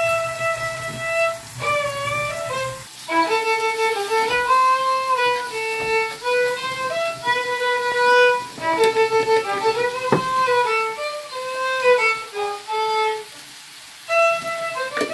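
Background music: a violin playing a melody of held notes, with a short pause near the end.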